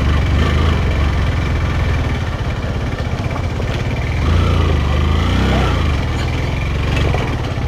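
Motorcycle engine running steadily under load at low revs, pulling up a steep, rough dirt track.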